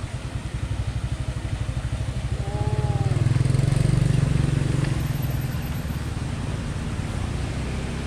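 An engine running close by with a fast, even pulsing rumble, swelling about three seconds in and easing off again.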